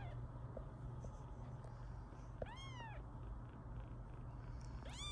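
Young British shorthair kitten mewing: two short high mews about two and a half seconds apart, each rising then falling in pitch.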